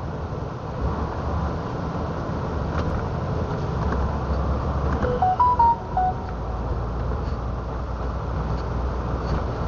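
Steady low rumble of a truck running, heard from inside the cab. About five seconds in, a short electronic melody of about five notes plays, stepping up and then back down in pitch.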